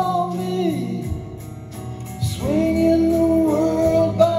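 A live band plays a slow ballad, with a man singing over acoustic and electric guitars, bass and drums. A sung line trails off about a second in, and after a short lull a new long note is held.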